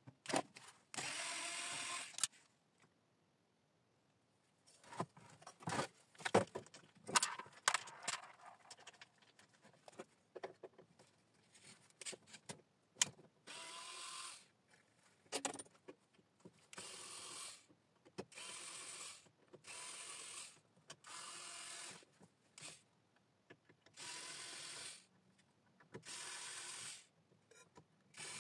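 Cordless electric screwdriver running in repeated short bursts of about a second each, driving screws out of a three-phase electricity meter's housing. Sharp clicks and clatter of small metal parts being handled come between the bursts, mostly in the first third.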